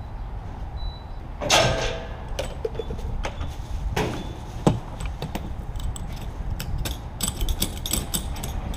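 Two short high beeps from a fuel pump keypad, then a boat storage hatch lid creaking open with a clunk, a sharp click, and a run of clicks and knocks as the fuel nozzle is handled at the boat, over a steady low hum.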